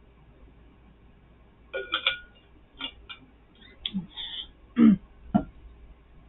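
A pink metal water bottle is handled in a run of short clicks and knocks as its cap is screwed back on. It is then set down on the table with two heavier knocks, the loudest about five seconds in.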